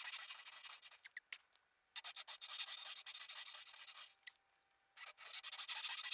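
Faint rasping of a hand tool cutting into wood, in three stretches broken by short silences.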